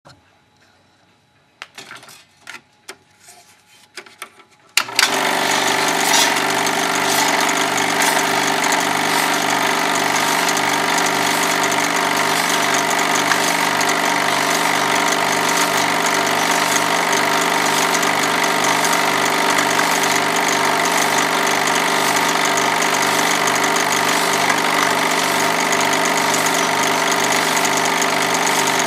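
Film projector: a few clicks, then about five seconds in it switches on and runs steadily, a motor drone with a regular pulsing beat.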